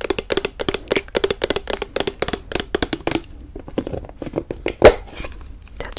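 Fingers and fingernails tapping and scratching fast on a large plastic yogurt tub and its lid, thinning out about three seconds in, with one louder knock near the end.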